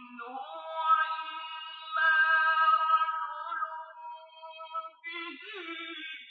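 Film soundtrack music with high, held sung notes, starting suddenly after silence, heard through a television speaker.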